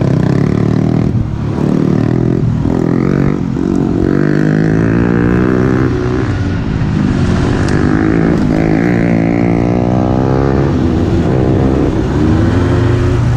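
ATV (quad) engines running under throttle on a dirt trail, pitch rising and falling as the riders speed up and ease off.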